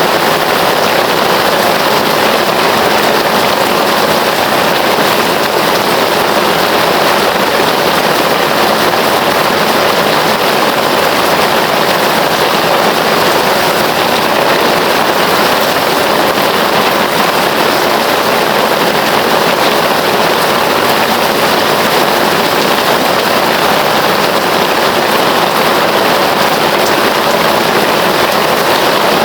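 Heavy rain falling steadily: a dense, even hiss with no let-up or changes.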